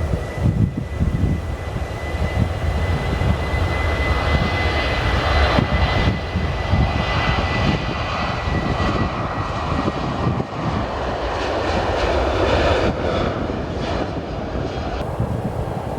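Jet airliner engines running, a broad rumble and hiss with a steady high whine that fades about halfway through.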